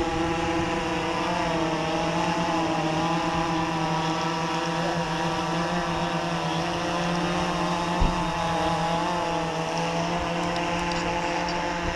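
Flip FPV Pro quadcopter's electric motors and propellers hovering close by: a steady buzzing whine whose pitch wavers slightly as the flight controller trims the motor speeds. A brief knock sounds about eight seconds in.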